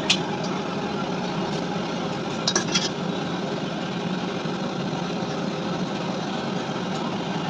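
Steady mechanical hum over a background of noise, with a sharp click at the very start and three quick clicks about two and a half seconds in.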